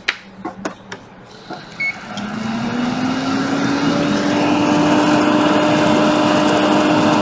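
A few sharp clicks of small tools, then, about two seconds in, the blower of a hot air rework station starts and spins up, rising in pitch to a steady hum with a rush of air, as the burnt ACL3247 chip is about to be desoldered.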